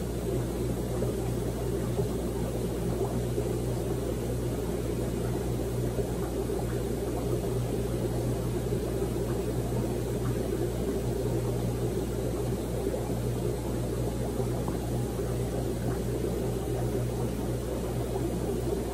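Steady low mechanical hum with a soft hiss, from aquarium equipment running.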